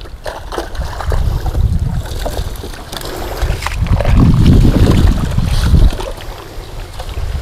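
Shallow muddy pond water sloshing and splashing as hands grope through it for prawns, under an uneven rumble of wind buffeting the microphone. The sloshing swells louder about four seconds in.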